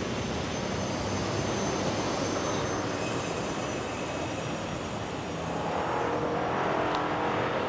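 Street traffic: a car and motorbikes driving along the road, a steady rumble and hiss that dips a little in the middle and swells again near the end.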